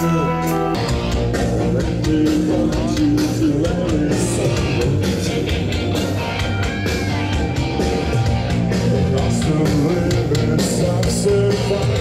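Metal band playing live through a loud PA, with drums, distorted guitars and singing. A held chord gives way to the full band crashing in about a second in.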